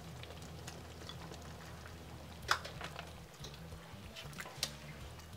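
Thick egusi soup bubbling in a large pot as a spatula stirs it, with scattered soft crackles and a few sharp clicks of the spatula against the pot, the loudest about halfway through, over a steady low hum.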